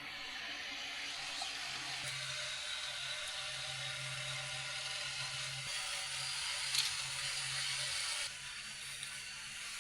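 Steady whir of a small electric machine with a low hum, with one sharp click near seven seconds in. The whir cuts off abruptly about eight seconds in.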